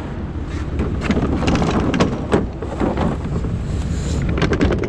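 A vehicle running on the road with a steady low rumble and wind on the microphone, with a run of short knocks and clicks from about a second in and again near the end.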